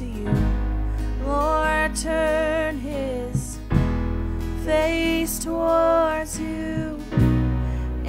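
Worship song: a voice singing slow held phrases over sustained low chords, with guitar.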